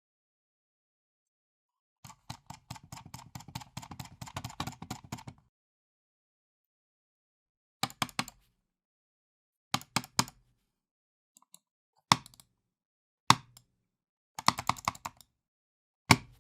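Computer mouse worked hard in anger: a fast, frantic run of clicks for about three seconds, then pauses broken by single hard clicks and short bursts of rapid clicking, the loudest being sharp single hits.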